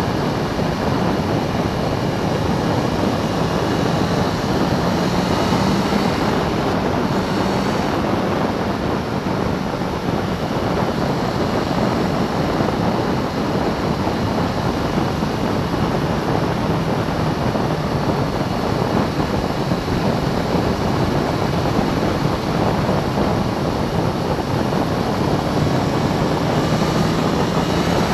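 Motorcycle engine running steadily at road speed, mixed with the steady rush of wind and tyre noise on a bike-mounted microphone.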